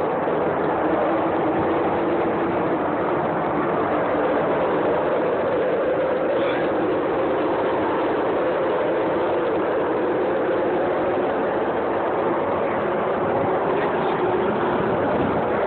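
A loud, steady, jet-like roar with a droning hum, coming from the sky. It sounds like fighter jets, though a neighbour puts it down to two factory smoke stacks.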